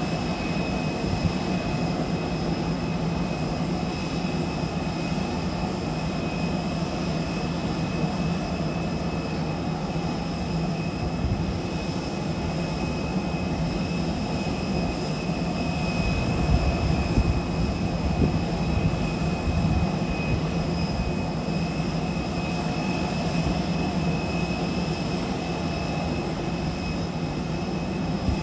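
Steady whine over a low hum from a parked Airbus A320 airliner at the gate, with a louder, rumbling stretch around the middle.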